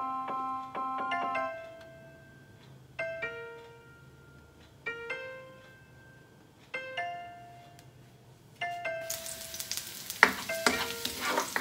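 Soft piano-like background music, single notes struck about every two seconds. About nine seconds in, minced garlic starts sizzling in hot oil in a wok, with the clicks and scrapes of a spatula stirring it.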